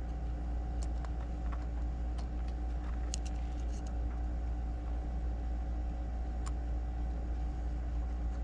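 A steady low machine hum, unchanging throughout, with a few faint light clicks of small copper contacts and a screwdriver being handled on a workbench, about one, three and six and a half seconds in.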